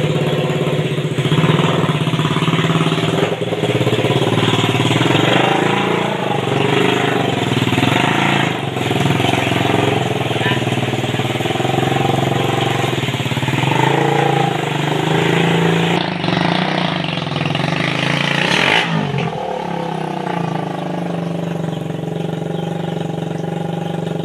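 Motorcycle engine of a homemade mini buggy running, revving up and down unevenly, with a shift in its note near the end.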